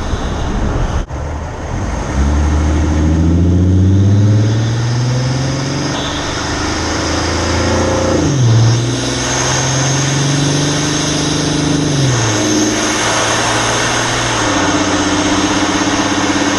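Ford F-150's 2.7 EcoBoost twin-turbo V6, with an Injen cold-air intake, accelerating through the gears. Its pitch climbs from about two seconds in and drops at each upshift, about eight, twelve and fourteen seconds in. A thin high turbo whistle rides above it and grows stronger in the later gears.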